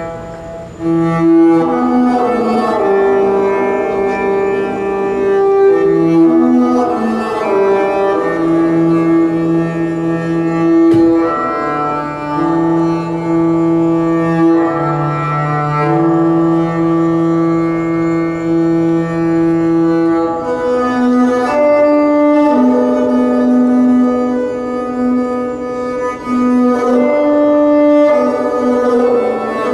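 Earth harp: its very long strings stroked lengthwise with rosined hands, giving sustained, cello-like bowed notes. Several notes sound together and change every second or two, and the lowest notes shift higher a little past two-thirds of the way through.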